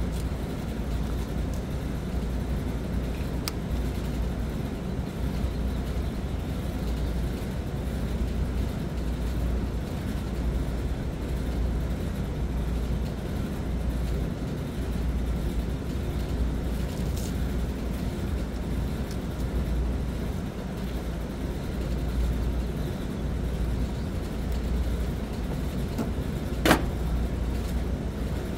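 Steady low rumble of outdoor background noise, with a few small clicks from hand work on the wiring of a motor starter in an electrical control panel, the sharpest near the end.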